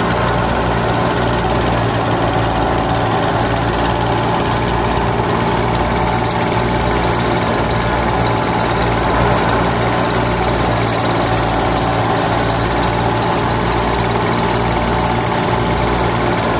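Small motor in a miniature thresher running steadily, spinning a spiked threshing drum through a belt: an even mechanical hum with an uneven low throb underneath.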